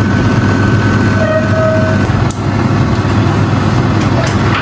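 Steady, loud low rumbling noise, with a thin faint tone in the first half and a single sharp click a little after two seconds in.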